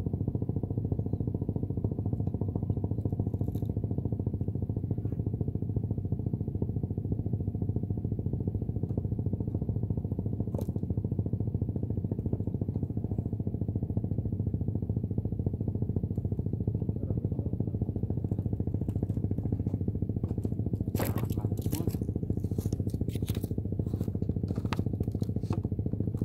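A steady low engine drone. Near the end comes a run of sharp clicks and knocks as someone steps onto the bamboo raft and handles gear.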